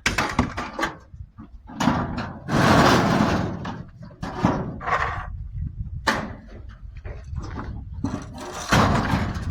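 Large metal barbecue being tipped and shifted by hand, with irregular clanks, scrapes and thuds of sheet metal, the loudest a long scrape about three seconds in.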